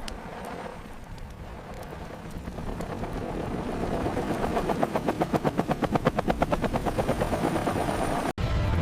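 A rapid, even thumping, about six or seven beats a second, that grows steadily louder over several seconds and cuts off abruptly near the end.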